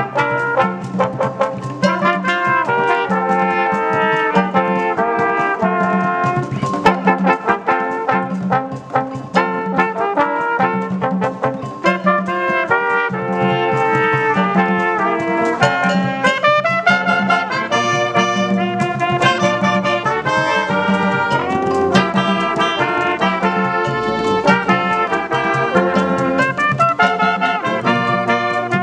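Orchestral brass section of trumpets and trombones playing a melody together, over a steadily pulsing low bass note.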